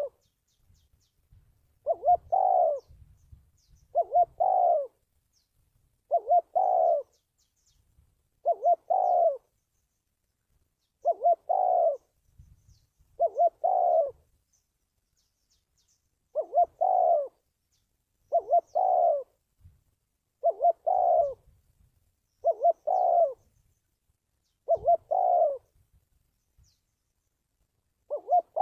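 Spotted dove cooing: a rhythmic two-part coo repeated about every two seconds, a dozen times over, with a few longer pauses. It is a trapping lure call, used to train decoy doves and draw wild ones in.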